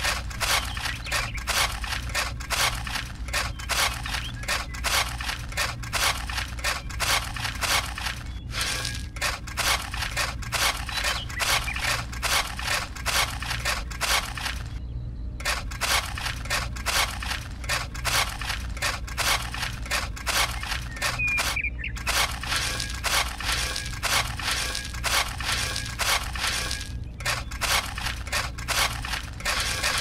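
Small metal shovel scraping and chipping at hardened, crumbly concrete on a hard board, raking the grit and chunks about. Quick repeated strokes, about three a second, with a few short pauses, over a steady low hum.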